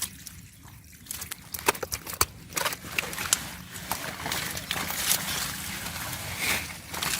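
Shallow river water splashing and sloshing in irregular bursts, as it does when someone works through it by hand. The splashes are sparse at first and come thicker from about two seconds in.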